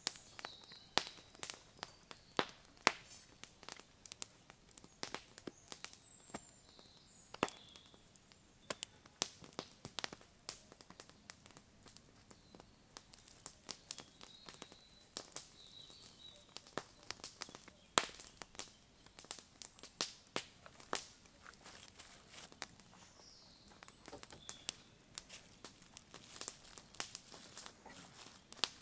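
Wood campfire crackling, with irregular sharp pops several times a second. Faint bird chirps come and go.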